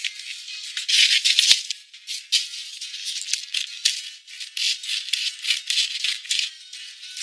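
Background music carried by rapid, uneven shaken percussion, thin and trebly with no low end.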